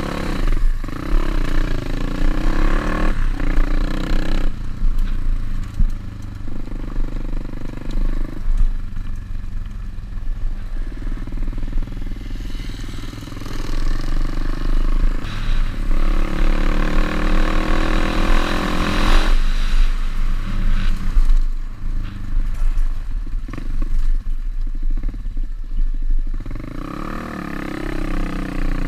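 Single-cylinder pit bike engine being ridden, its revs rising and falling repeatedly with gear changes and throttle, with a long stretch at higher revs about two-thirds through. A heavy low rumble and clatter from the bike run underneath.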